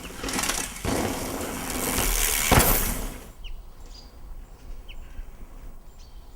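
Mountain bike tyres crunching over a gravel trail in a loud rush for about three seconds, then dying away. A few short bird chirps follow.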